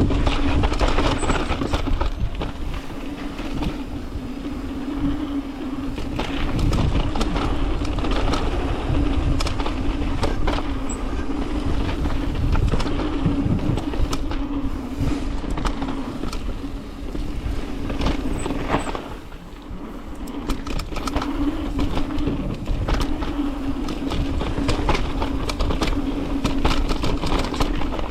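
Mountain bike descending a dirt jump trail at speed: tyres rolling and skidding on dirt with the frame and parts rattling over bumps, a steady hum underneath and wind on the microphone.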